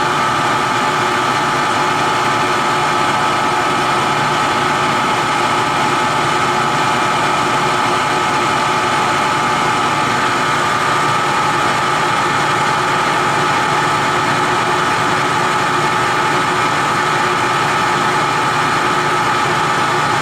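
Clausing Colchester 15x50 metal lathe running steadily at 840 RPM with a constant gear whine from the headstock while taking a light finishing cut.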